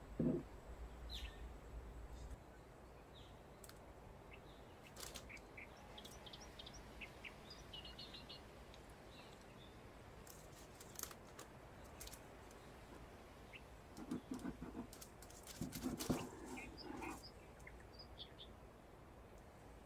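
Quiet handling sounds of a sponge cake on parchment paper: the browned skin being peeled away and the cake cut with a long knife, soft rustles and scattered light clicks, with a short rustle at the very start and louder rustling scrapes about three quarters of the way through.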